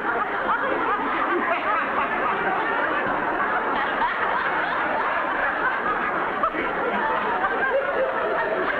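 Sitcom audience laughter: many people laughing at once, holding steady without a break.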